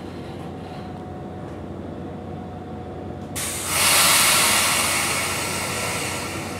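Steady train rumble, then a little over three seconds in a sudden loud burst of compressed-air hiss that slowly fades: air venting from a commuter train's air brake system.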